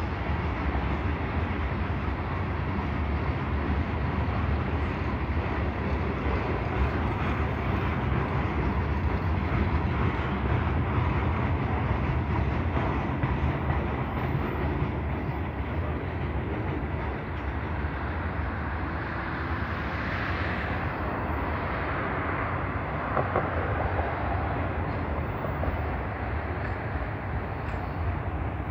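Freight cars of a Canadian Pacific train rolling past (gondolas loaded with scrap, boxcars and autoracks): a steady, continuous rumble of steel wheels on the rails.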